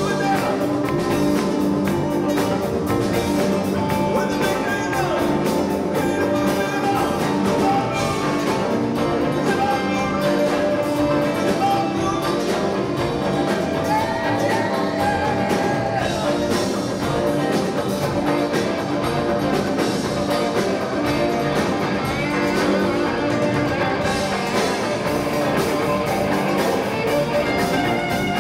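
Live rock band playing: electric guitars, bass and drum kit in a steady groove.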